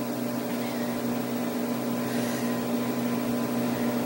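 Steady background hum with a constant hiss and a low steady tone: room tone with no distinct event.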